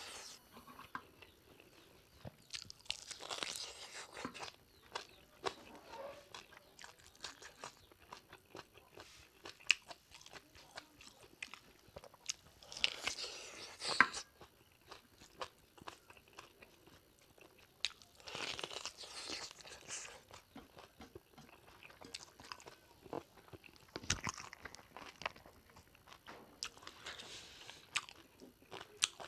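Close-up chewing and biting of pig leg curry, pork skin and meat, with loud bursts of crunching every few seconds and small wet clicks and smacks between them.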